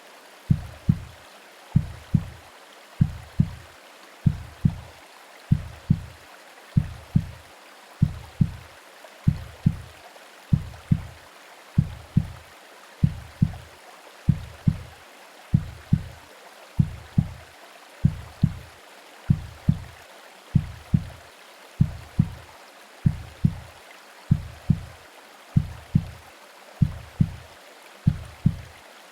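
Womb-sound heartbeat: a steady, even rhythm of soft low thumps over a continuous gentle hiss of white noise and rain.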